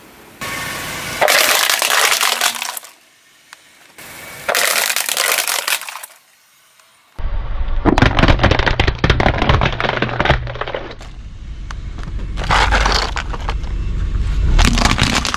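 Hard plastic toy parts cracking and breaking under a Suzuki car's tire as it rolls over them, over the car's low rumble. Two shorter bursts of loud crunching noise come in the first six seconds.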